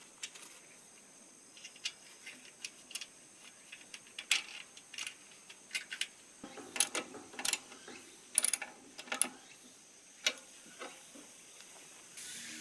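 Irregular sharp clicks and light knocks of hand work on metal parts, some louder knocks bunched in the middle, over a faint steady high whine.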